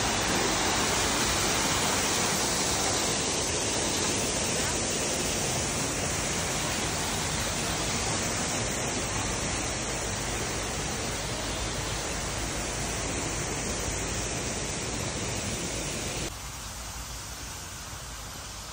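Waterfall spilling down a rock wall into a pool: a steady, even hiss of falling water that slowly fades, then drops suddenly to a fainter hiss near the end.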